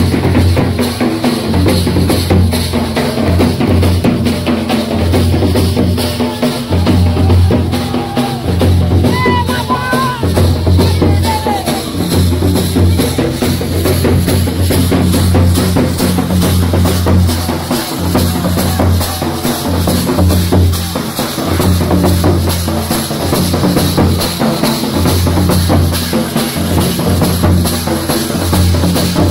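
Live folk drumming on large two-headed barrel drums beaten with sticks: a steady driving dance rhythm with heavy low booms, with crowd voices mixed in.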